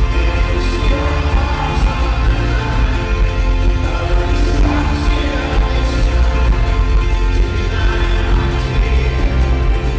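Live folk-rock band playing loudly through a concert PA, with banjo and upright double bass over a strong, steady low end, heard from within the crowd.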